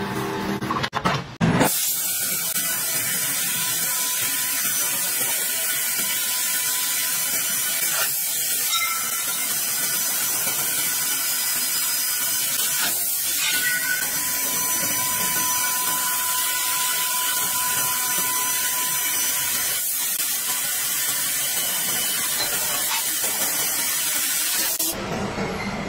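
Laser tube-cutting machine cutting through a steel pipe, giving a steady high hiss that starts about two seconds in, after a brief different machine sound.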